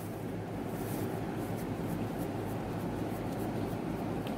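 Hands kneading and pressing soft biscuit dough in a glass bowl: a soft, steady rubbing and scraping.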